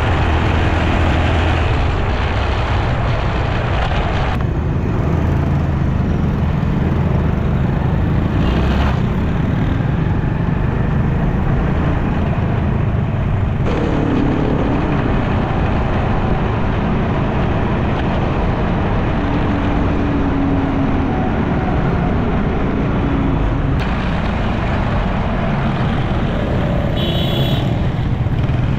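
Motorcycle riding through city traffic, heard from the bike: a steady engine hum with road and traffic noise. The sound changes abruptly three times, and there is a short high beep near the end.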